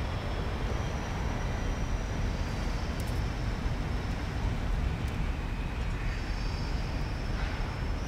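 Steady low outdoor background rumble, with faint thin high tones coming and going over it.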